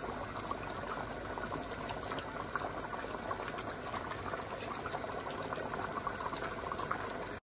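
Beef trotter curry bubbling and simmering in a wide pan, a steady bubbling with small pops, the dish finished and ready. It cuts off suddenly near the end.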